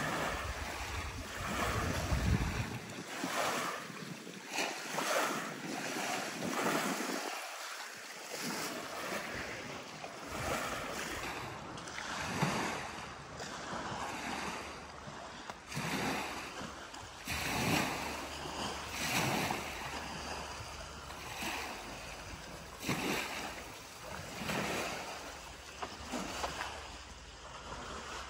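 Small lake waves washing against a pebbly shore in uneven swells, with wind rumbling on the microphone.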